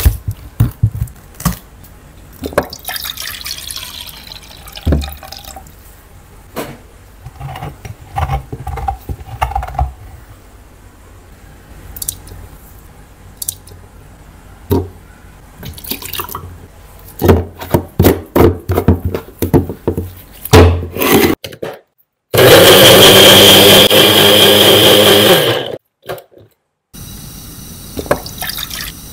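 Knife strikes chopping open a tender coconut, with coconut water splashing, then a series of knocks and clicks from kitchen prep. About 22 s in, a small electric blender grinds coconut flesh, a prawn and coconut water into a paste for about three and a half seconds and stops suddenly. Near the end, cooking oil pours into a frying pan.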